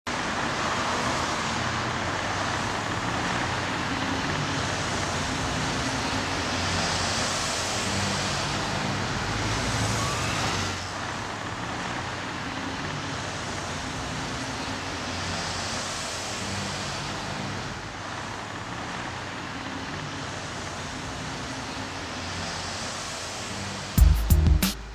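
Street traffic: cars driving past one after another, the steady road noise swelling and fading every few seconds. Music with a beat cuts in sharply near the end.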